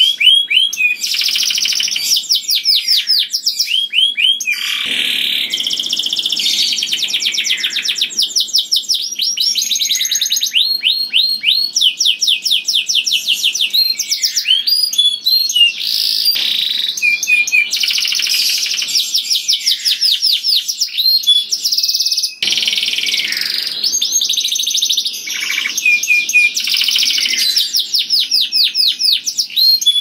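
Domestic canary singing a loud, unbroken song of fast trills and rolls: runs of quickly repeated high notes that switch to a new note pattern every second or two.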